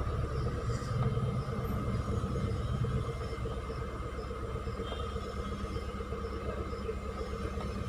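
Honda Civic engine idling steadily, a continuous low rumble with a faint steady hum above it, running with its repaired MAP sensor wiring and the misfire fault code cleared.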